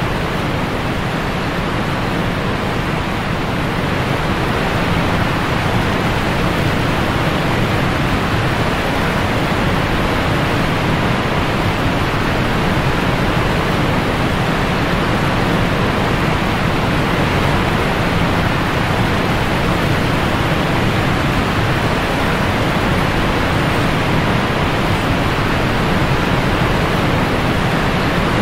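Steady rush of whitewater river rapids around an inflatable raft, a loud, even noise.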